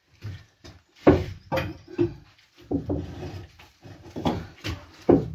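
Heavy ballast slabs knocking and scraping as they are lifted out of a narrowboat's floor and set down, with grunts of effort. There are about half a dozen sharp knocks.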